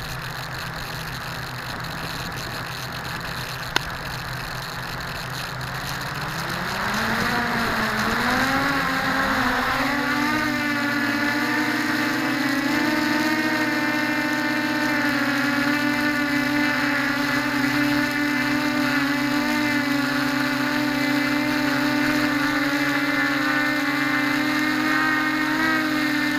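Mini quadcopter's electric motors: a low steady hum with a single click about four seconds in, then the motors spin up in a rising whine about seven seconds in and settle into a steady, many-toned whine as the quad flies.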